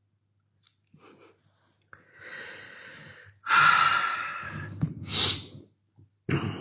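A man's breath sounds close to the microphone, from a man ill with COVID. A drawn-in breath is followed by a loud exhale starting sharply about three and a half seconds in and trailing off, then a sniff and another short breath near the end.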